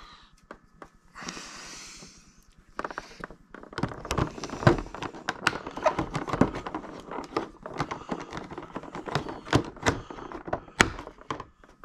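Plastic toy packaging being handled close up: a short crinkle about a second in, then a dense run of clicks and rustles from about four seconds in as the straps holding the figure in its tray are worked off.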